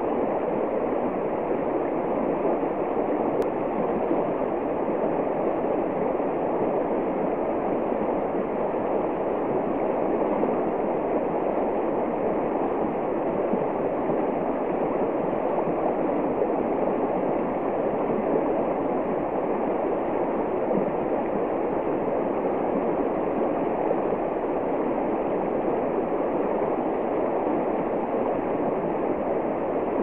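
Shallow river running fast over a stony bed and breaking around a tree trunk: a steady rush of water.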